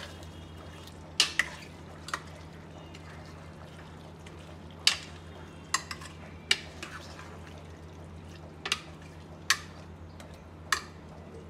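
Metal ladle scraping and clinking against the sides of a pressure cooker while keema, potatoes and peas are stirred: about ten sharp, irregularly spaced clinks. A steady low hum runs underneath.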